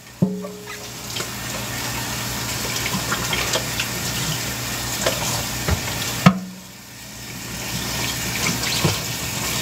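Countertop blender running on a jar packed with frozen watermelon cubes: a steady motor hum under a rattling hiss with small ticks of frozen chunks, switched on with a click, cutting out about six seconds in and starting again. The packed cubes stay put in the jar: too much frozen fruit for the blade to pull down.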